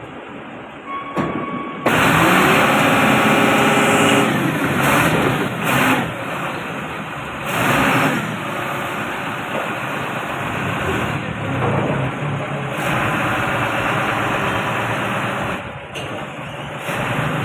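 Large 7-ton forklift's engine running close by. It comes in suddenly about two seconds in, is loudest over the next couple of seconds, then rises and falls with the throttle as the forklift moves.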